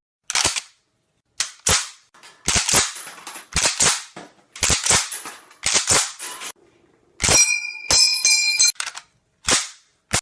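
A string of about a dozen sharp cracks like shots, some in quick pairs, each with a short echoing tail. Between about seven and nine seconds in, the cracks come with a high ringing tone.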